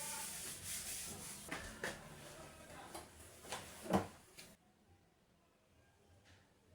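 Household handling noises: a scraping rub, then a few light knocks, the loudest about four seconds in, like a cupboard or drawer being shut, then near silence.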